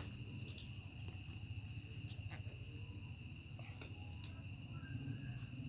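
Crickets chirping in a steady, continuous high-pitched chorus, over a faint low rumble.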